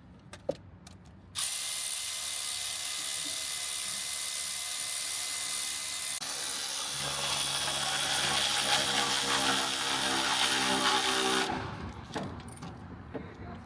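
Cordless electric ratchet running continuously for about ten seconds, driving a clamp bolt on an intercooler boot; a lower hum joins partway through and the sound grows a little louder before it stops abruptly.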